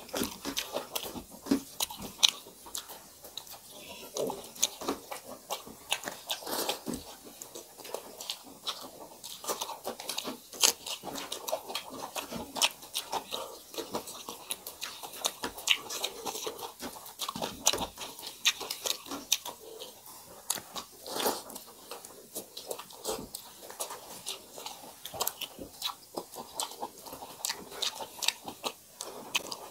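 Close-miked eating by two people: chewing and biting rice with fried bitter gourd, capsicum and green chillies, full of quick irregular crunches and wet clicks.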